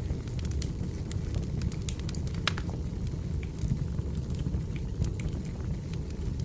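Firewood burning in a fireplace: irregular sharp crackles and pops over a steady low rumble.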